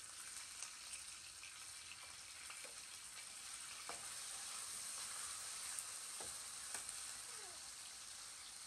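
Food sizzling in hot oil in a wok on a portable gas stove, a steady frying hiss, with a metal spatula clicking against the pan a few times as it is stirred.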